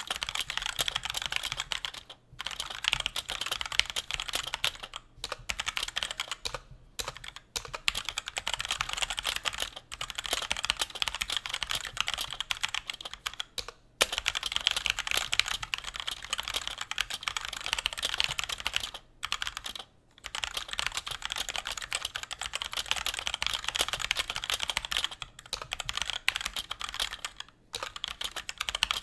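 Fast, continuous typing on a Cooler Master CK530 mechanical keyboard with linear Gateron Red switches, a dense run of key clicks and bottom-outs broken by short pauses every few seconds.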